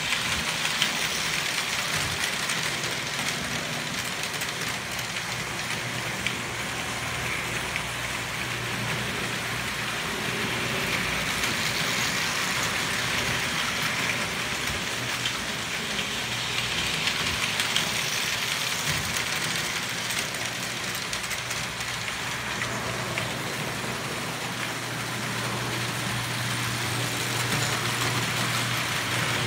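Prewar Lionel O gauge toy trains running on three-rail tinplate track: a steady metallic rattle of wheels and motors, with a constant low hum and scattered small clicks from rail joints.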